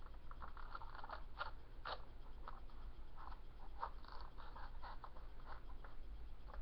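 Hands pressing and handling a small cardboard egg carton: irregular small crinkles, taps and scrapes, with a steady low hum underneath.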